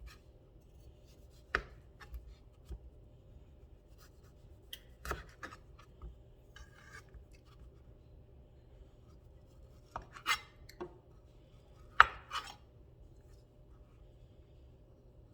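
A kitchen knife cutting kiwi on a cutting board: a few sharp, irregularly spaced knocks of the blade against the board, the loudest about three-quarters of the way through.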